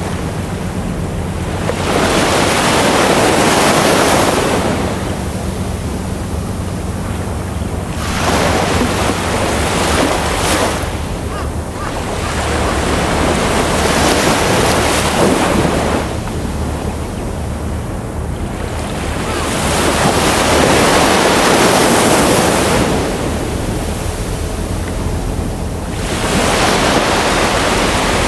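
Ocean waves breaking and washing up a shore, five surges swelling and ebbing about every six seconds, over a steady low rumble.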